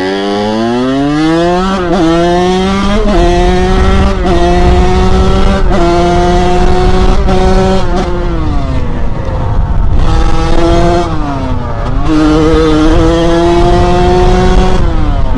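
Kawasaki KX100 two-stroke dirt bike engine accelerating hard: its pitch climbs and drops with quick upshifts in the first few seconds, then holds at high revs. A little past halfway it backs off and dips, then revs up again through more shifts.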